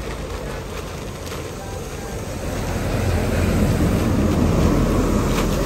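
Road vehicle noise: a steady rumble that grows louder about halfway through as a vehicle comes close, then eases slightly near the end.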